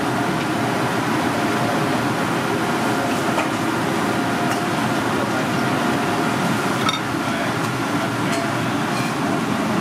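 Steady mechanical background noise, an even fan-like rush, with a few faint clicks about seven seconds in.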